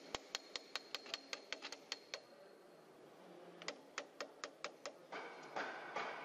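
Quiet background music: a steady ticking beat of about four to five ticks a second over a faint high held tone. The ticks stop for a moment near the middle, then come back, and a fuller, denser layer joins them near the end.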